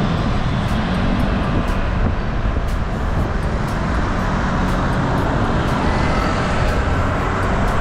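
Steady rumble of wind on the microphone mixed with road traffic noise while riding along a road.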